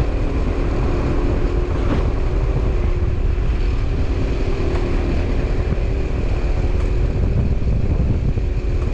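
Motorbike engine running steadily under way, with a heavy low rumble and a steady hum throughout.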